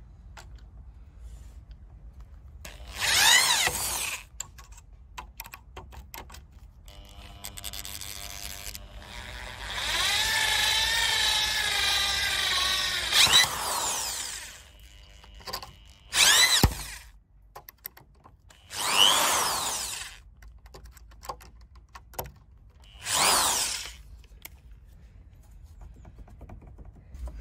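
Cordless drill driving wood screws into a timber post: several separate runs of the motor whining up to speed and labouring under load, the longest about four seconds, with short pauses between.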